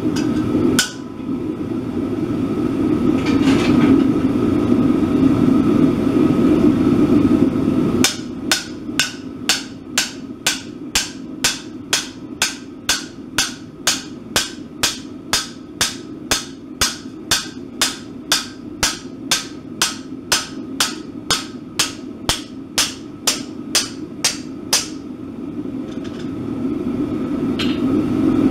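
Hand hammer striking red-hot steel on an anvil. A blow near the start and another a few seconds later, then a long, even run of blows about two a second that stops a few seconds before the end. A steady low rushing noise runs underneath.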